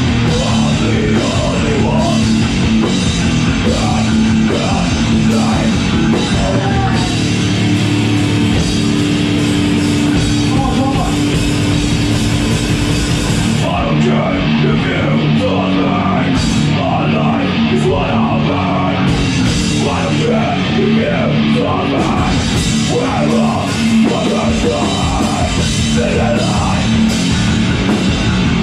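A live hardcore punk band playing loud and fast on distorted electric guitars, bass guitar and a drum kit, heard from the room. About halfway through, the high cymbal wash drops away for roughly five seconds, then comes back.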